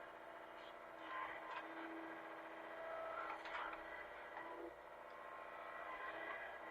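Hitachi mini excavator's engine running steadily, swelling in level now and then as the machine works.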